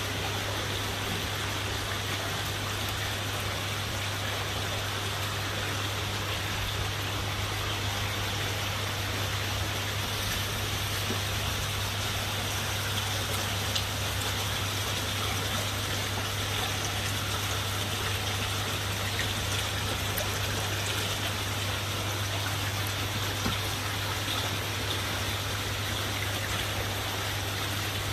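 Steady running, trickling water in a koi holding tub, over a constant low hum.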